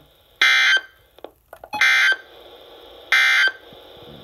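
Three short, identical bursts of Emergency Alert System SAME digital data tones, about a second and a quarter apart: the end-of-message code that closes the alert.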